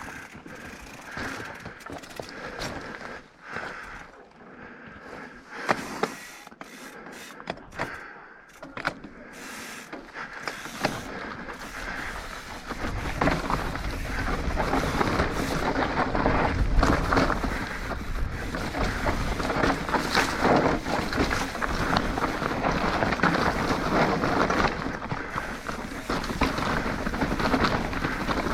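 Yeti SB150 mountain bike riding down a rocky trail: scattered sharp knocks and rattles as the tyres and bike hit rock. About halfway in, a louder steady rush of tyre noise and wind on the microphone takes over as speed builds.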